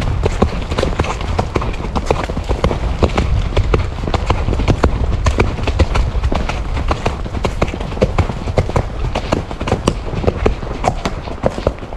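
A ridden horse's hooves beating on a leaf-covered dirt woodland track, many irregular knocks in quick succession, over a steady low rumble.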